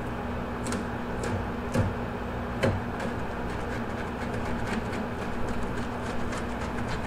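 Small knife working around a largemouth bass's tail to cut the skin free, making light scattered clicks and scrapes, with two short knocks about two and three seconds in, over a steady background hum.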